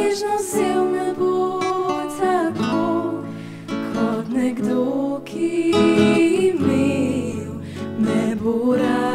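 Music: acoustic guitar strumming under a melody line, playing without a break.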